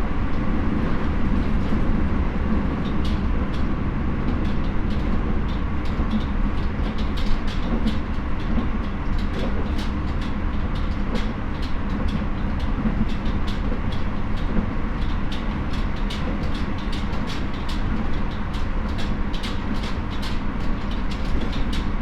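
Keio 9000 series electric train running at speed, heard from inside the car: a steady rumble of wheels on rail, with a rapid scatter of sharp clicks from the track.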